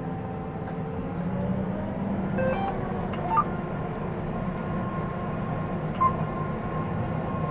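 John Deere 9900i self-propelled forage harvester running steadily under load as it chops whole-crop barley: a continuous engine and machinery drone, with a faint steady whine coming in about halfway.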